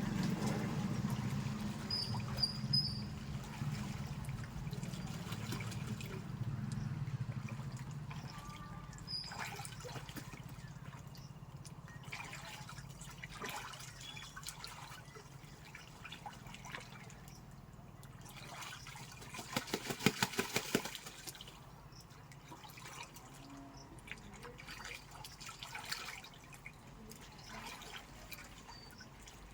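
Water trickling and splashing, with scattered drips and a quick run of rapid clicking splashes about two-thirds of the way through, the loudest moment.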